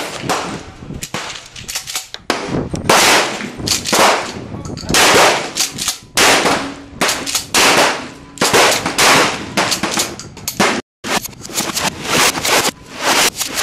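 Pump-action shotgun firing again and again, about one loud shot a second, each blast trailing off in a short echo. The sound cuts out briefly about eleven seconds in.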